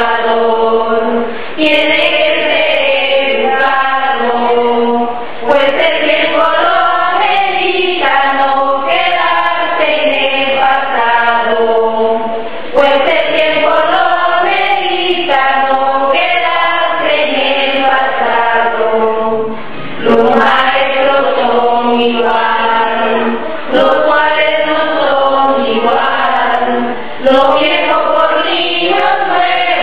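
Background music: a choir singing a slow, chant-like piece in phrases a few seconds long.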